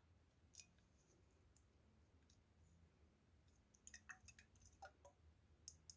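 Faint, scattered small clicks and taps: a few isolated ones early, then a quick cluster of them in the last couple of seconds.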